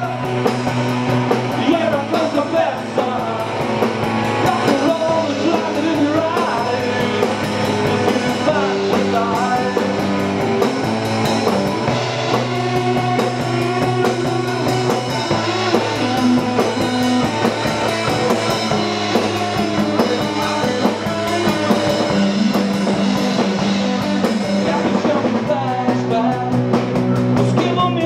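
Live rock band playing loudly: electric guitars and a drum kit, with a man singing lead vocals.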